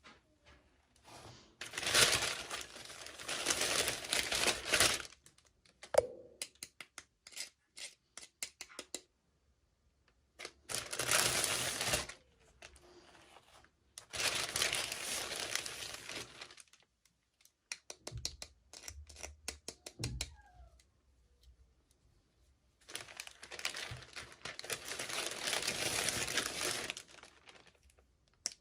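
Toy packaging being torn and crinkled by hand in four spells of rustling, with small clicks and taps in between.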